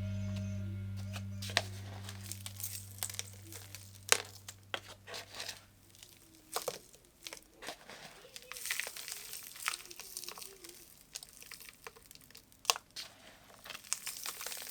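Crinkling and tearing handling noises, with scattered sharp clicks and taps.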